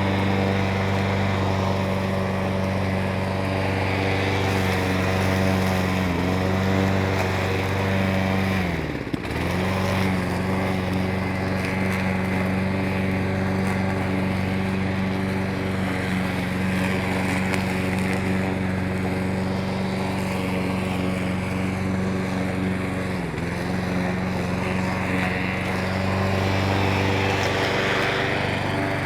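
Petrol lawn mower engine running steadily at speed, its pitch dipping briefly three times, most deeply about a third of the way in, before recovering.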